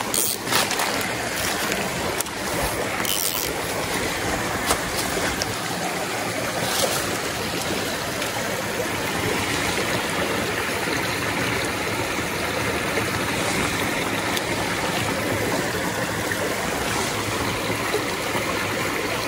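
Small mountain creek running steadily, water trickling and splashing over a log cascade, with a few brief clicks in the first seven seconds.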